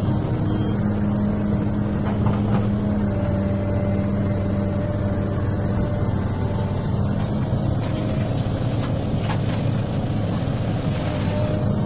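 XCMG excavator's diesel engine running steadily, with a few faint knocks about two seconds in and again near the end.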